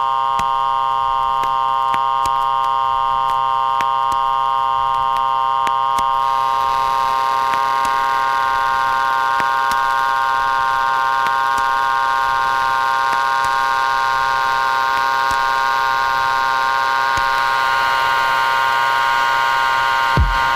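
Electronic music intro: a sustained synthesizer drone of several steady tones, with a hiss building in behind it from about six seconds in. A kick drum beat comes in right at the end.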